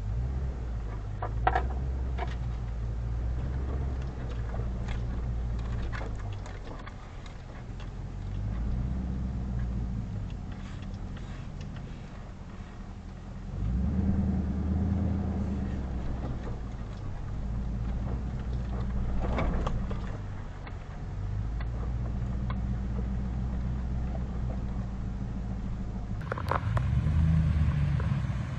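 Low engine and drivetrain rumble of an off-road vehicle crawling along a rough dirt trail, with scattered knocks and rattles from the bumpy ground. The engine note swells about halfway through.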